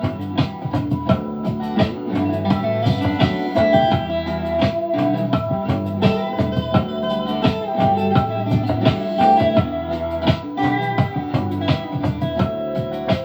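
Music with a beat played through an AKAI SS023A-X10 speaker during a sound test.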